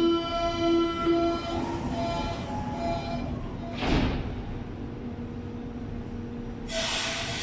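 Berlin U-Bahn train's door-closing warning: a steady pitched tone, pulsing in strength, that stops about three seconds in, followed about a second later by the sliding doors shutting with a single thump. A burst of hiss starts near the end.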